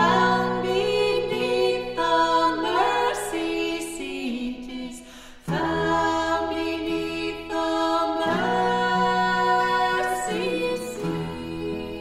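Music: a women's vocal ensemble singing a gospel hymn in close harmony, phrase by phrase, with a fresh phrase starting about halfway through.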